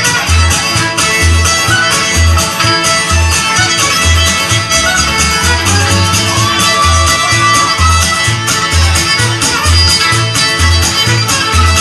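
Bluegrass band playing live with no singing: fiddle leading over strummed acoustic guitars and mandolin, and an upright bass plucking a steady beat about once a second. A long held fiddle note comes about halfway through.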